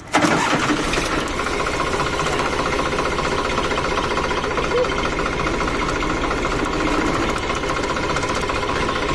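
Diesel tractor engine catching suddenly after being bump-started by spinning a jacked-up rear wheel, then running steadily in gear with a steady whine through it.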